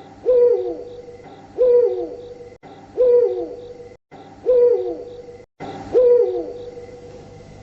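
Owl hooting five times, about one and a half seconds apart, each hoot a held note with a falling slide; the hoots are identical, as in a looped sound effect.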